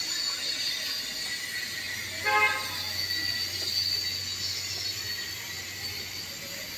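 Steady rain, with one short horn toot a little over two seconds in.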